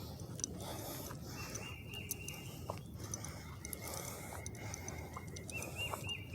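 Songbirds singing: one bird repeats a short phrase of quick looping whistled notes, with a long held whistle in the middle, and fainter high chirps from other birds.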